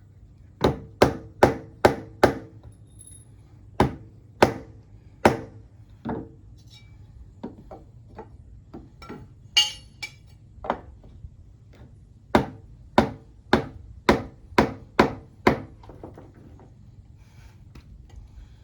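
Hammer striking 2x4 wood framing: sharp blows about two a second, in several runs with pauses between, the last run of about seven strikes the loudest.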